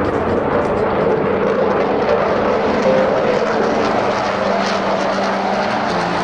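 Airliner engines running with a steady, loud rush of noise, as a plane takes off or lands.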